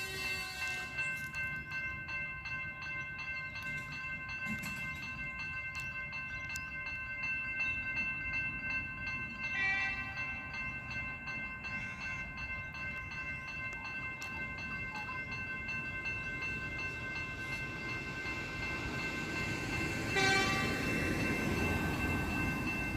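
Railway level crossing warning bells ringing steadily while the boom gates lower. A short train-horn blast sounds about ten seconds in and again near the end, when the rumble of an approaching train builds up.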